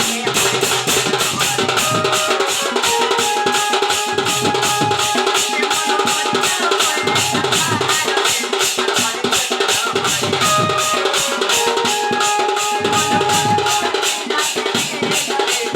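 Instrumental music interlude with fast, evenly spaced drum strokes, about four a second, under a sustained melodic line.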